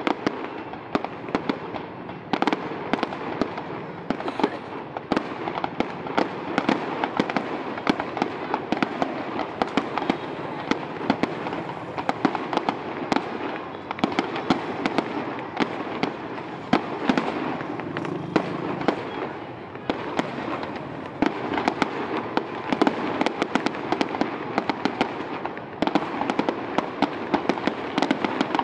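Fireworks display: aerial shells bursting in the sky, a continuous run of many sharp bangs close together without a pause.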